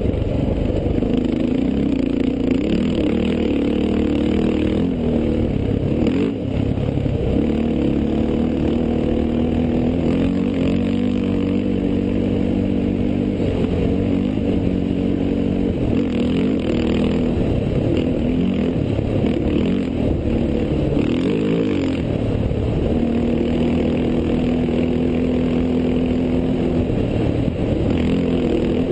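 Desert race vehicle's engine heard from on board, running steadily under way, its pitch rising and falling with the throttle.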